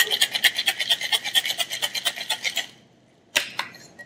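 Ice rattling in a metal cocktail shaker during a hard shake, a fast, even rhythm of strokes that stops about two-thirds of the way through. Then two sharp knocks as the shaker is broken open.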